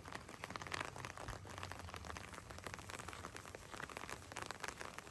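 Continuous fine crackling and crunching: many small irregular clicks, fairly even in level throughout.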